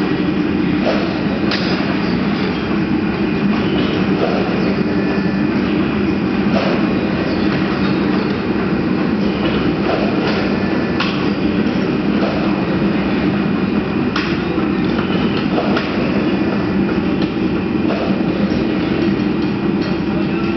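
Automatic flat bed printing machine running, a steady mechanical hum with sharp clacks at uneven intervals every second or two.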